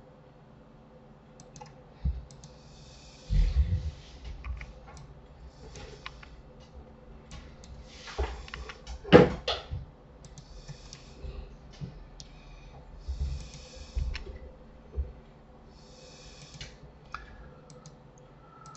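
Computer keyboard keystrokes and mouse clicks, irregular and scattered, with a few dull knocks; the loudest hit comes about nine seconds in.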